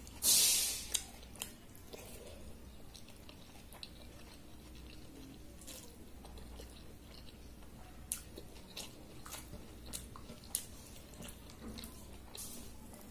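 Hand-eating watery panta bhaat: a loud slurp about half a second in as a handful goes to the mouth, then soft wet squishes and clicks of fingers mixing the soaked rice in its water, with chewing.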